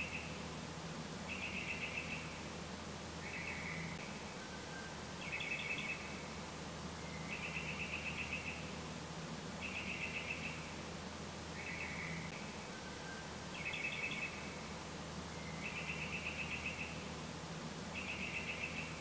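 Animal calls: short trills made of rapid pulses, each under a second long, repeating about every two seconds, over a low steady hum.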